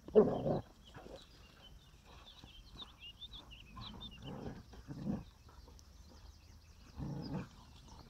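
Two dogs play-fighting, giving short bursts of growling: four bursts, the first and loudest just after the start, the others about 4, 5 and 7 seconds in.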